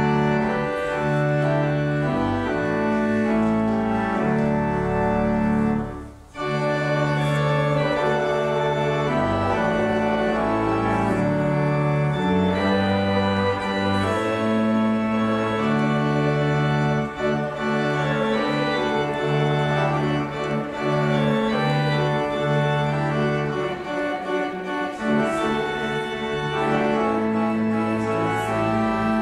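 Church pipe organ playing slow, sustained chords, with a brief break about six seconds in.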